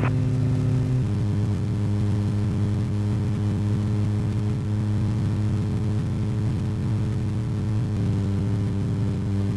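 Light aircraft's piston engine and propeller droning steadily during the takeoff run, heard from inside the cockpit. The pitch of the drone shifts about a second in and again near the end.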